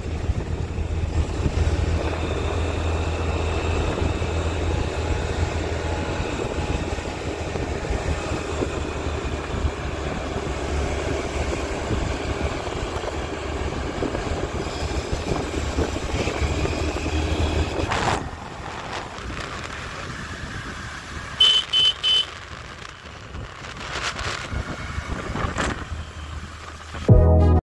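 Honda Activa scooter running steadily on the move, a low steady hum under road noise. It quietens about two-thirds through, and a few short high beeps follow.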